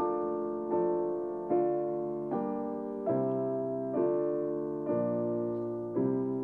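Slow background piano music: a chord struck about every 0.8 seconds and left to fade before the next.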